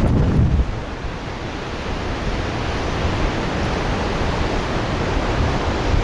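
Steady rushing of ocean surf and wind on a beach, with low wind buffeting on the microphone, strongest in the first half-second.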